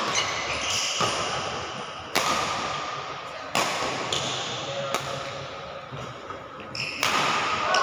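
Badminton racket strikes on a shuttlecock in a rally, a sharp crack about every one to two seconds, each ringing on in the hall's echo. Short high squeaks from shoes on the court floor come between the strikes.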